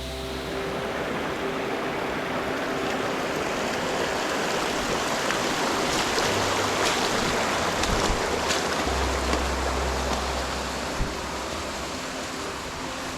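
Rushing mountain brook, a steady wash of water that swells louder toward the middle and then eases off.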